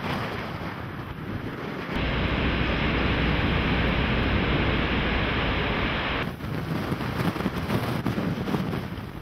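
Violent tornado winds rushing and buffeting the microphone, with a deep low rumble. The sound jumps louder and fuller about two seconds in and turns gustier after about six seconds.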